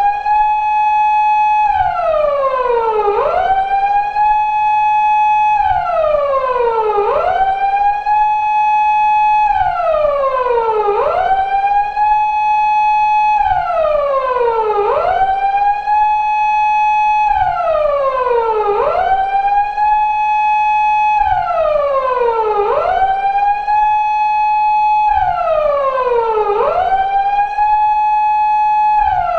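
Japanese police patrol car siren of the 2000s type used on Toyota Crown patrol cars, wailing on a four-second cycle. Each cycle is a quick rise, a held high note for about a second, then a slow fall, repeating evenly.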